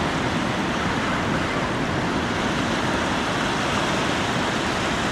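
Steady rushing noise of ocean surf at the shoreline, even throughout with no single wave break standing out.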